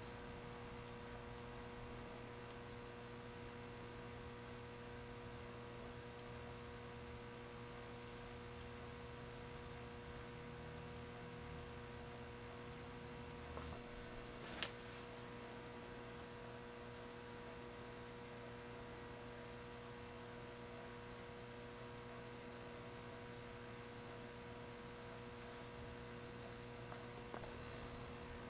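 Steady mains-type electrical hum, a low drone with higher tones over it, unchanging in level, with one sharp click about halfway through and a couple of faint ticks.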